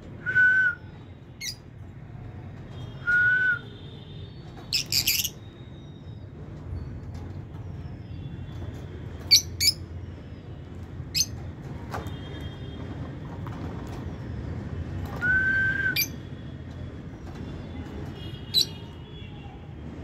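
Peach-faced lovebirds chirping: short, shrill calls every few seconds, with a few brief level whistled notes between them, over a steady low rumble.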